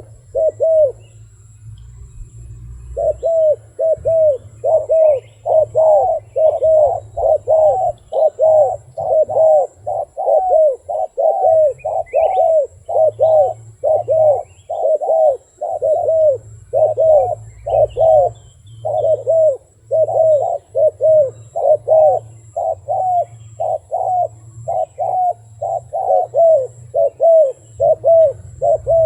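A dove cooing in a long, fast series of short, arching coos, about two to three a second, with a brief break about a second in.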